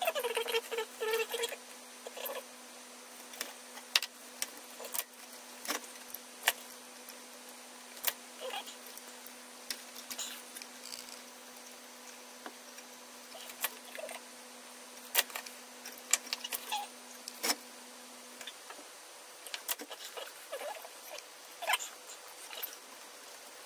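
Small handling noises from hand work on charger cable leads: scattered clicks, taps and scratching, with a brief squeaky rasp right at the start. A faint steady hum runs underneath and stops about 18 seconds in.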